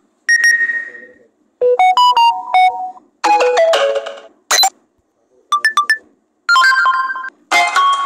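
A run of short electronic notification tones from the CyanogenMod sound set, previewed one after another on a Samsung Galaxy A03s. About seven different chimes and beeps play in quick succession, each stopping as the next one starts.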